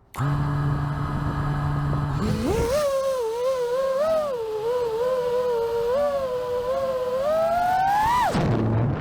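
Brushless motors and propellers of an FPV freestyle quadcopter (Mr. Steele V5 1750kv motors) spinning at idle with a steady low hum after arming. About two seconds in the throttle comes up and it becomes a loud whine that rises and dips with the throttle. The whine climbs just before the end, then drops sharply as the throttle is cut.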